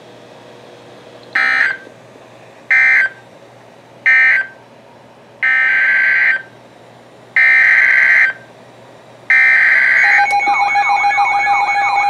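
NOAA Weather Radio SAME data bursts, harsh buzzy chirps: three short end-of-message bursts, then three one-second header bursts announcing the next alert, about a second apart. Right after the last burst, about ten seconds in, the weather radios start their alert tones, a warbling up-and-down tone over steady beeps.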